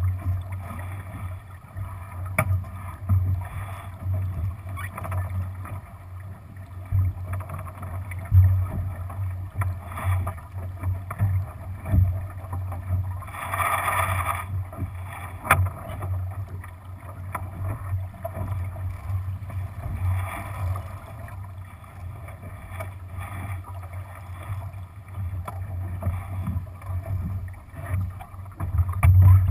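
Water rushing and slapping along the hull of a Lightning-class sailboat under sail, with a gusty low rumble of wind on the microphone. A brief louder splash comes about halfway through.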